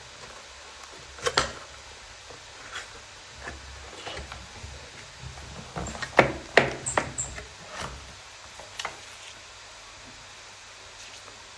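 Handling noises from unboxing a mini mechanical keyboard: scattered sharp knocks and clicks of packaging and parts being moved, a pair about a second in and a busier cluster a little past halfway.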